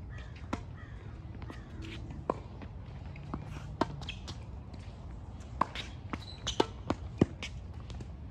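Tennis rally on a hard court: a string of sharp pops from racket strings striking the ball and the ball bouncing on the court, starting with the serve about half a second in, with the far player's shots fainter. The hits come irregularly, with a quick run of louder pops near the end.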